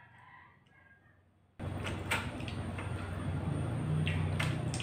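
Crispy fried chicken being torn apart and eaten close to the microphone: a few sharp crackling crunches over a steady low hum. It is very quiet for about the first second and a half, then the sound cuts back in abruptly.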